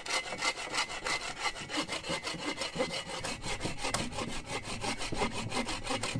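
Hand saw cutting through a dead, barkless log, with quick, even back-and-forth strokes of the blade rasping in the wood.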